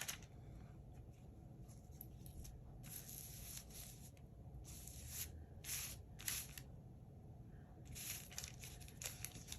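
Sheets of paper and cardstock rustling and sliding against each other as they are handled, in several short bursts.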